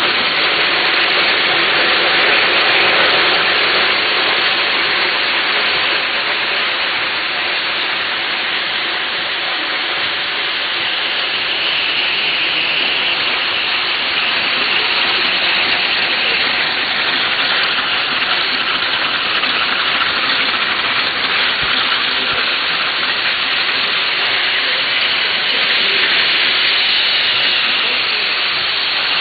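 Steady hissing machine noise from a running bottle-cap pad printing machine and its cap feeder. No separate strokes or beat stand out.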